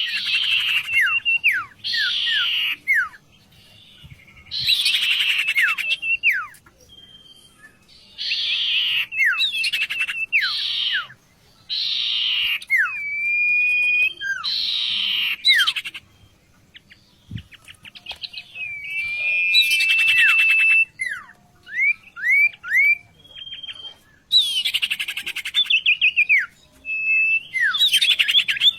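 A songbird kept as a vocal tutor ('sirtu') sings loud phrases of rapid chattering notes mixed with slurred downward and level whistles, each burst lasting a second or two, with short pauses between them.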